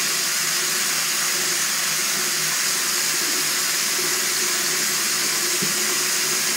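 Hot water running steadily from a tap into a sink.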